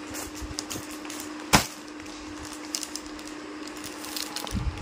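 Cardboard sari boxes being handled, with small taps and rustles and one sharp knock about a second and a half in, over a steady low hum.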